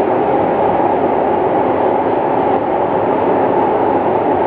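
Interior running noise of a moving SMRT metro train: a loud, steady rumble and rush from the wheels on the rails that stays even throughout.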